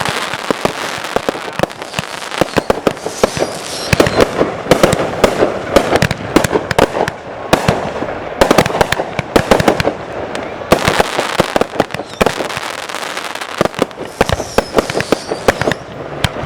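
Fireworks exploding directly overhead in a dense, continuous run of sharp cracks and pops, with crackling between the bangs.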